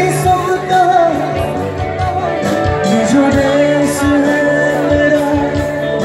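Live band with a lead singer playing through a stage PA: sung melody held on long notes over electric guitars and a steady drum beat.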